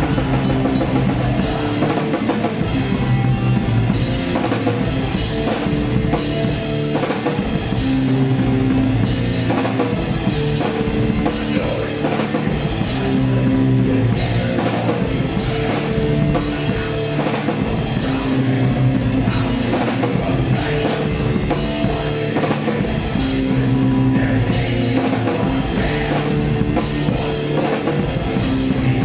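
Black metal band playing live, heard from a microphone at the drum kit: fast, dense drumming under electric guitar riffs, continuous and loud.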